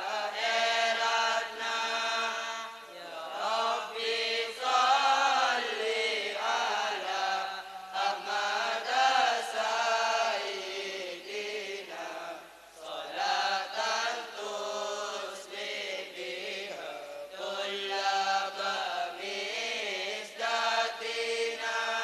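A group of boys chanting Madurese syi'ir (religious verse) in unison, a melodic recitation in phrases of a few seconds with brief pauses between them.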